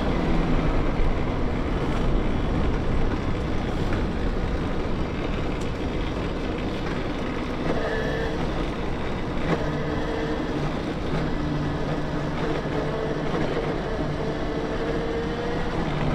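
Wind rush and tyre noise of an electric mountain bike being ridden, with a steady low hum joining about halfway through.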